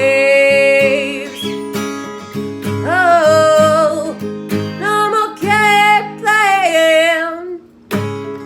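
A song: strummed acoustic guitar under a sung melody with long held, wavering notes. The music drops out briefly near the end, then the guitar comes back in.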